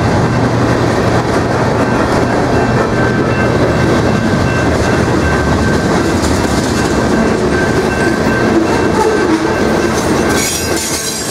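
Loud, steady rumble and rattle of a mixed freight train's cars rolling past close by: steel wheels running on the rails.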